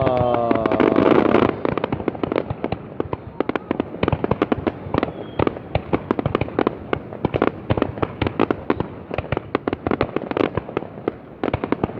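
Fireworks and firecrackers going off in a dense, irregular string of sharp bangs and pops, many overlapping. The first second and a half is loudest, with a brief falling tone mixed in.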